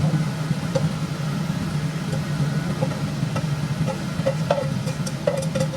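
Food stir-frying in a pan over a steady low hum, with light sizzling and scattered clicks and scrapes of a spatula against the pan, more frequent in the second half.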